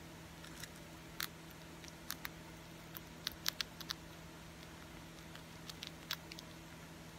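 Hamster nibbling and handling food, making faint, scattered small clicks of its teeth and claws on a plastic cup, with a cluster of sharper ticks about three to four seconds in. A steady low hum sits underneath.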